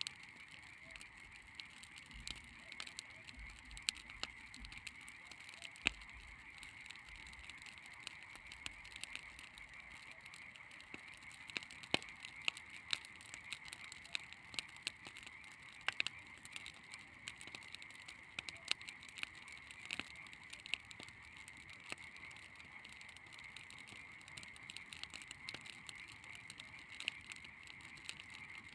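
Bonfire of dry branches and dry grass crackling, with irregular sharp pops and snaps. A steady high-pitched chorus runs behind it.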